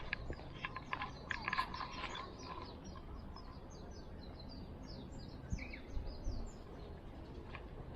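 A small bird chirping a quick run of short high notes over a steady low outdoor rumble; scattered sharp clicks and rustles in the first two seconds.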